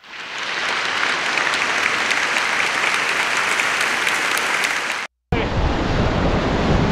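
Rushing whitewater: a dense, steady hiss of churning river water that fades in and cuts off abruptly about five seconds in. After a brief silence it returns as a deeper rumbling rush.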